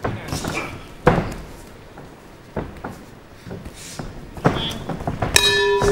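Boxing gloves landing punches with sharp thuds, the loudest about a second in and others spaced a second or two apart. Near the end the ring bell rings and keeps ringing, marking the end of the round.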